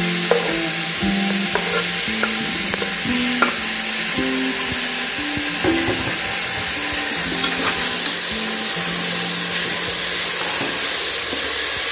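Chopped tomatoes and onions sizzling in hot oil in an aluminium pressure cooker while a metal ladle stirs them, with a few sharp clicks of the ladle against the pot. Soft background music plays underneath.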